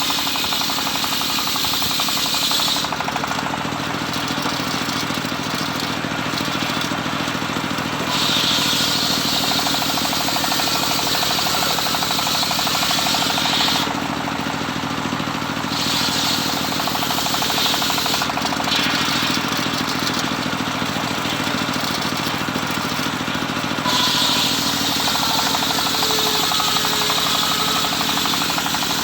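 Home-built circular saw running steadily as it rips teak timber, a steady machine drone underneath. The bright hiss of the blade cutting fades out for a few seconds at a time and returns, several times.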